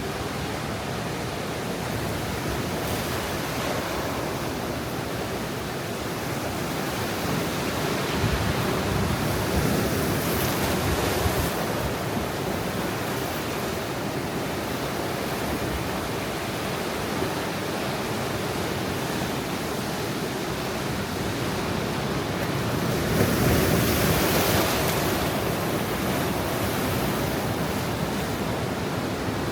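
Ocean surf washing steadily against the shore, with waves breaking louder about eight seconds in and again about twenty-three seconds in.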